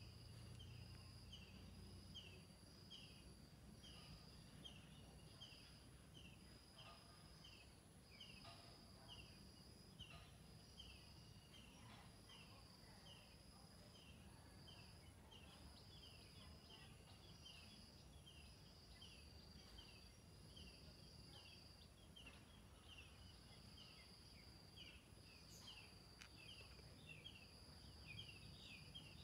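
Faint outdoor ambience: a short falling chirp repeats evenly, a little under twice a second, over a steady high drone of insects.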